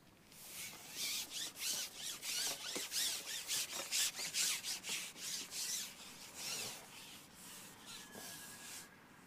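Maver carbon fishing pole being pulled back hand over hand, a run of quick rasping rubs of the pole through the hands, several a second, easing off about six seconds in.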